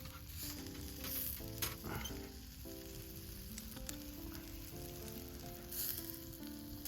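Food sizzling steadily on a grill over a charcoal fire, with a couple of brief louder hissing surges, under background music.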